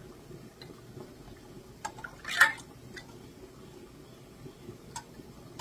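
Metal canning lids and rings clicking against glass mason jars as they are set on, with one sharp clink about two and a half seconds in and lighter clicks around it.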